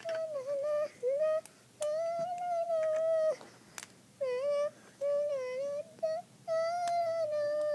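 A young child singing a wordless tune in a high voice, held notes of about a second with short breaks between them, with a few light clicks of plastic toys being handled.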